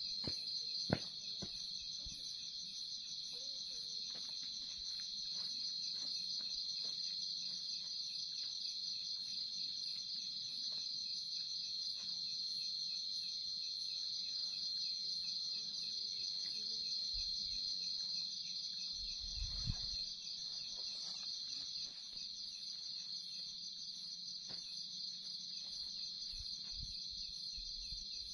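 Night insects chirring steadily in a continuous high trill, with a second, higher pulsing chirp over it. A sharp click comes about a second in and a dull low thump about two-thirds of the way through.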